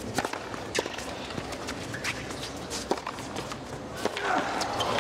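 Tennis rally: a serve and a string of sharp pops of racket strings hitting the ball, under a low murmur from the stadium crowd. About four seconds in, the crowd noise swells as the point ends.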